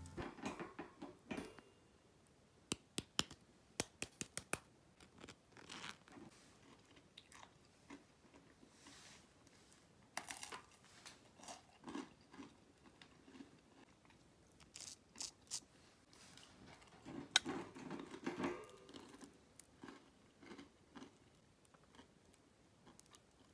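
Crisp butter-and-sugar caramelized toast crunching: faint, irregular crunches and crackles, with a few sharper, louder clusters, as when a crisp crust is bitten or broken.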